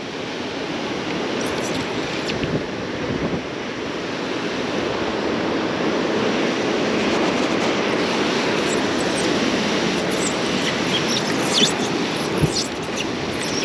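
Ocean surf washing over rocks, a steady rushing that slowly builds, with a few light clicks near the end.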